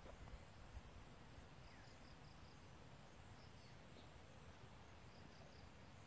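Near silence of open pasture: a faint low rumble, with faint high chirps repeating in short quick runs a few times.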